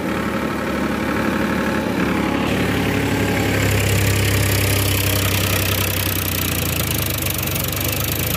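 Powertrac Euro 50 tractor's diesel engine running steadily under load, driving a wheat thresher through the PTO, with the thresher's drum and blower whirring and hissing as it blows out chaff. The hiss and low hum grow fuller about three seconds in.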